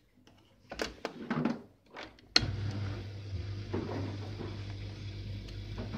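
A few knocks and clicks as the Beko 3503 PY dishwasher's controls are set, then a sharp click about two and a half seconds in as the machine starts and runs with a steady low hum, the start of a wash program.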